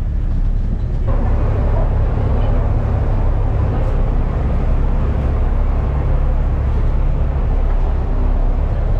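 Passenger ferry under way, its engines running with a steady low drone and a rushing noise that grows fuller about a second in.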